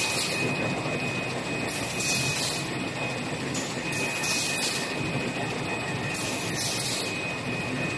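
Automatic travel-pack wet wipes production machine running: a steady mechanical din with a thin high whine, and a short hiss that repeats about every two seconds with each machine cycle.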